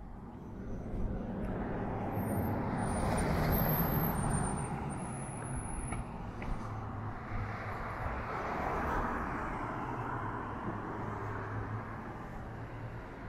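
Road traffic passing: two vehicles swell past, loudest about three to four seconds and nine seconds in, over a steady low rumble.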